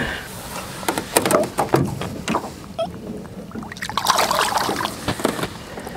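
Water splashing and sloshing as a bass is lowered into the lake by hand and released beside a rowboat. A run of small knocks and splashes comes in the first half, and a longer slosh about four seconds in.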